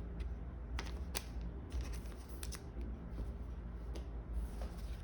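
Pokémon trading cards being handled, with several light clicks and snaps of card stock and a short rustle near the end.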